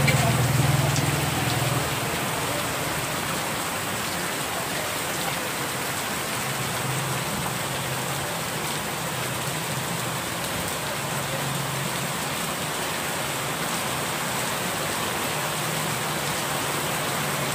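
Heavy rain falling steadily on a paved street, an even hiss. A low hum is heard in the first two seconds, then fades to a faint trace.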